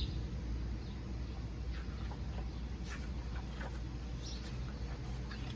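Quiet room tone: a steady low hum with a few faint clicks and squeaks.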